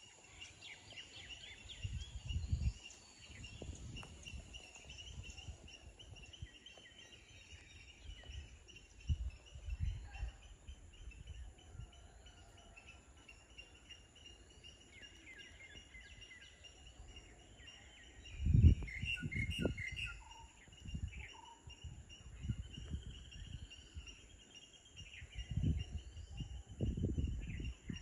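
Birds chirping over a steady high insect drone, with a bird repeating a short call every second or two. Irregular gusts of wind buffet the microphone, the strongest about two-thirds of the way through.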